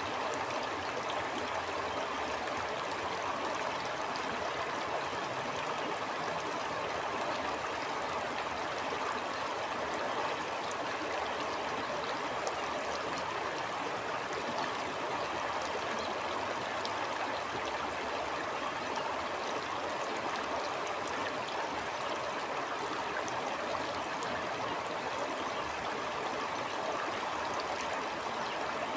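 Stream water flowing, a steady even rush with small flickering splashes and no change throughout.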